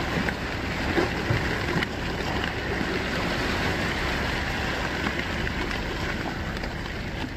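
Sea water washing against shoreline rocks: a steady rushing noise with a few faint clicks.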